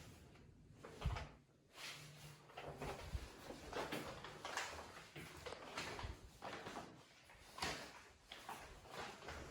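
Faint, irregular knocks, clicks and rustling of objects being handled, with one sharper knock about a second in.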